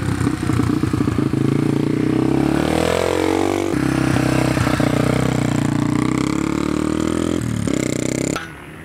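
Dirt bike engine pulling away under throttle: its pitch climbs a few seconds in, drops sharply at a shift, then holds steady before stopping abruptly near the end.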